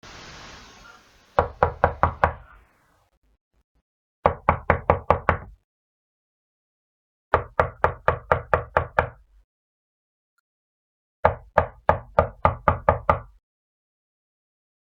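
Hard knocking on a wooden door, in four bursts of rapid knocks, about five a second, with pauses of about two seconds between bursts. A faint hiss comes before the first burst.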